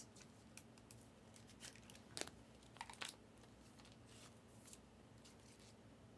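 Faint rustling and small clicks of trading cards and clear plastic card sleeves being handled and slid together, with a sharper click about two seconds in.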